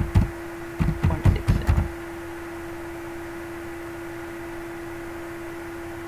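A quick run of about eight sharp computer clicks in the first two seconds, as a division is entered into a calculator on the PC. A steady low hum carries on alone after that.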